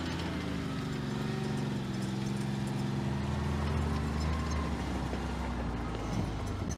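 Tank engine running steadily, its pitch dipping slightly in the first second; it cuts off suddenly at the end.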